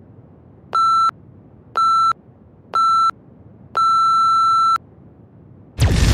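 Countdown-timer beeps: three short beeps a second apart, then one long beep of about a second as the timer reaches zero. Near the end a loud explosion starts suddenly.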